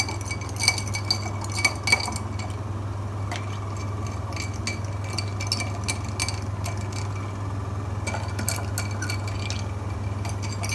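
Metal fork stirring iced drinks in glasses, clinking against the glass and the ice cubes. The clinks come thickly in the first couple of seconds and again near the end, sparser in between, over a steady low hum.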